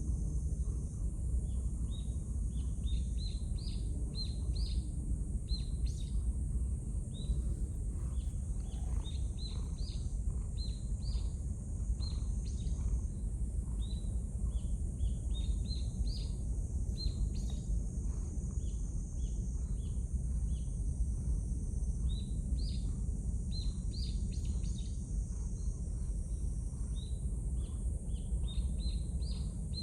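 Small birds chirping in quick, short chirps, several a second, over a steady low rumble and a constant high hiss of outdoor background noise.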